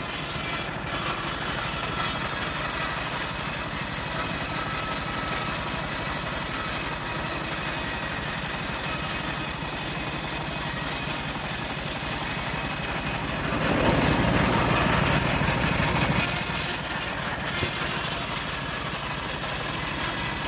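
Stihl MS 381 two-stroke chainsaw running steadily at high revs while cutting wood. About two-thirds of the way through, the sound changes for a couple of seconds, going deeper and less hissy, then returns to its steady note.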